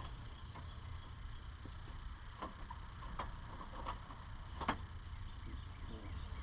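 Scattered light clicks and knocks of plastic trim and clips being handled on a pickup's grille and headlight area, the sharpest about four and a half seconds in, over a steady low rumble.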